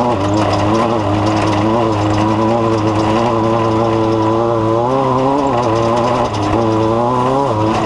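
An engine running steadily, its pitch wavering up and down a little, with a brief dip and recovery about five seconds in and again near the end.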